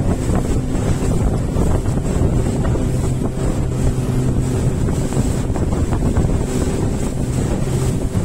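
Motorboat engine running steadily with the boat under way, a constant low hum, with wind buffeting the microphone.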